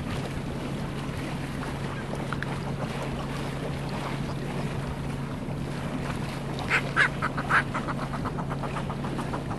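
Boat engine running with a steady low hum over sea-water noise. About seven seconds in, a few sharp knocks, then a run of rapid clicks that fades out.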